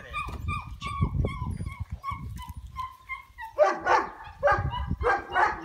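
Kuvasz puppy giving short, high, falling whimpering yips, about three a second. From about three and a half seconds in it breaks into a few louder barks in quick succession.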